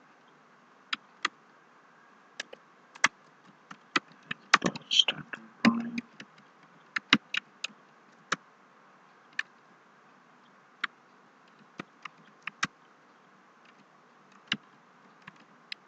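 Computer keyboard being typed on slowly: single sharp key clicks at irregular intervals, sometimes a few in quick succession, sometimes a second or more apart, over a faint steady hum.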